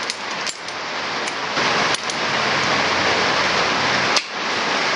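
Scattered sharp metallic clicks and clinks as small metal L brackets and hand tools are handled, over a steady hiss that grows louder a little over a second in.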